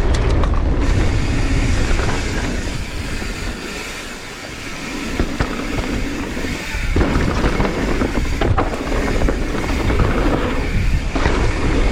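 Mountain bike riding fast down a dirt jump trail: wind rushing over the microphone with a heavy rumble, and tyres rolling and rattling over the dirt. It eases about four seconds in, then picks up again.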